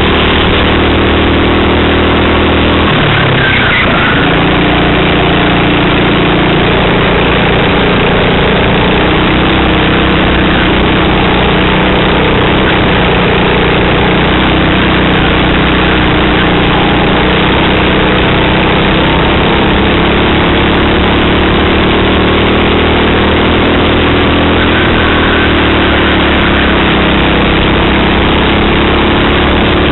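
Racing kart engine running hard, recorded onboard, loud, with a steady hiss over it. The engine note drops sharply about three seconds in as the kart slows for a corner, then climbs again as it accelerates away.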